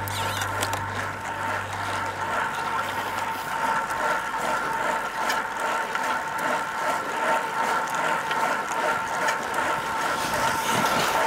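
Bicycle freewheel ratchet buzzing steadily with rapid clicking, as a coasting wheel makes. Music runs under it for the first few seconds and then stops.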